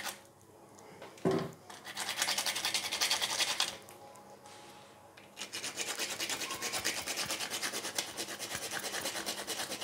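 Whole nutmeg being grated on a small grater: quick, even rasping strokes, about four a second, in two runs with a short pause between, after a single knock about a second in.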